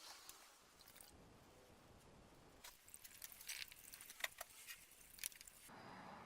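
Quiet workshop handling noises: a run of small clicks and scrapes about three seconds in, then a soft hiss near the end.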